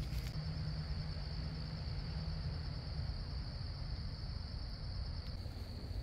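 Insects trilling steadily on one high, continuous note, over a low rumble on the microphone.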